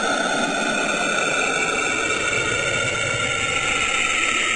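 Saturn's "sound" as presented in space-sound videos: radio emissions from the planet converted into audio. It is a steady hissing drone with faint whistling tones, one of which slowly rises in pitch.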